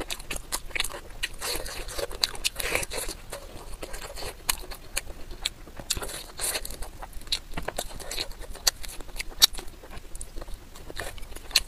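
Eating: chewing and biting braised duck leg and gnawing meat off the bone, with many irregular sharp crunching clicks.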